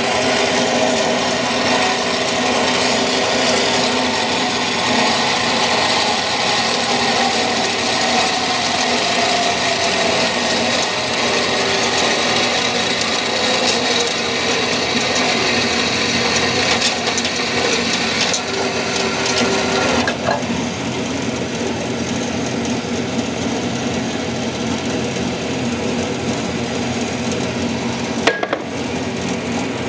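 Startrite H225W horizontal band saw running and cutting through stock, a steady grinding hiss of the blade in the cut with the motor hum beneath. About two-thirds through the hiss drops away as the blade finishes the cut, leaving the machine running more quietly, with a short click near the end.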